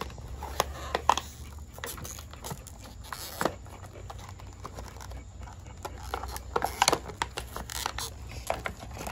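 Scattered light clicks and rustles of hands working with a multi-tool and small parts, over a low steady hum.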